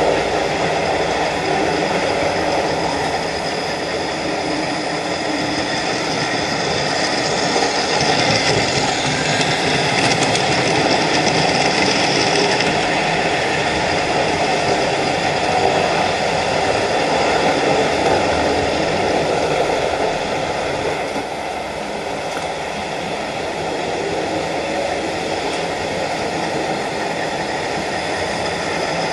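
Several OO gauge model locomotives running at once on the layout's track: a steady whine of several tones from their electric motors over the sound of wheels on rail. It grows louder in the middle as trains pass close by.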